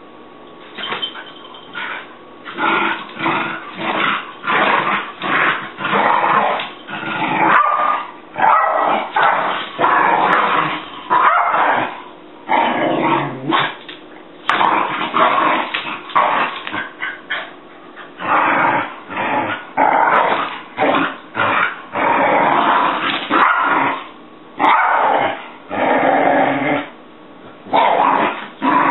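Jack Russell terrier growling and yapping in a long series of short, loud bursts.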